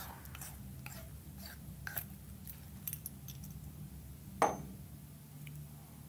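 Small metal parts of a disassembled E61 brew group being handled and set down on a wooden table: scattered light clicks and clinks, with one sharper knock about four and a half seconds in, over a steady low hum.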